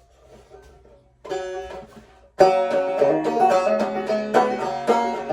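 Banjo music: the instrumental opening of an old-time song, starting faintly, with a louder strum about a second in and full, steady banjo picking from about two and a half seconds in.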